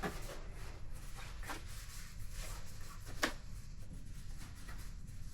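Light clicks and rubbing of small parts being handled by hand, with one sharper click about three seconds in, over a steady low hum.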